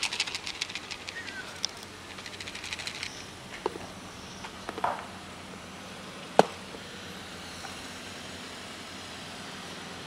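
Rapid rustling crackle for the first few seconds, then a few scattered knocks and one sharp click, the loudest sound, as a clear plastic food container is handled and set down on gritty ground.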